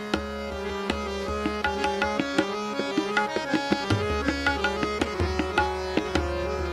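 Hindustani classical accompaniment in raga Kedar: tabla strokes keeping jhaptal, a ten-beat cycle, over a steady drone, with a melody instrument moving in short held notes.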